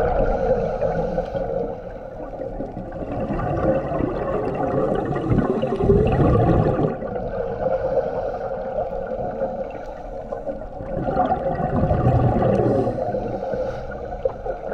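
Underwater sound of a scuba diver breathing through a regulator: hissing inhales and two long, low, bubbling exhalations about six seconds apart, over a steady muffled hum.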